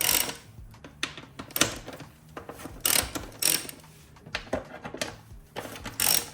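Socket ratchet with a 10 mm socket on a long extension clicking in short bursts as it loosens the bolts holding a dirt bike's tail section.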